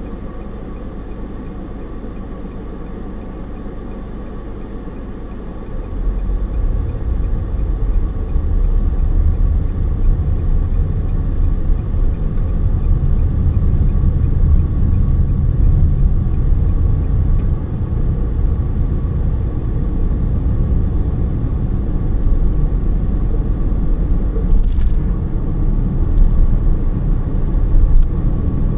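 Car interior road noise: a steady low hum, then about six seconds in a louder low rumble of engine and tyres sets in as the car drives on and keeps going.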